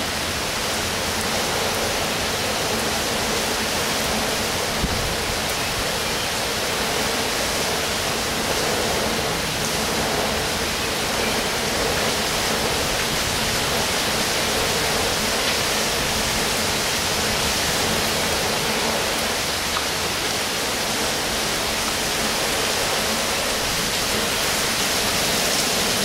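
Heavy rain pouring down in a steady, even hiss.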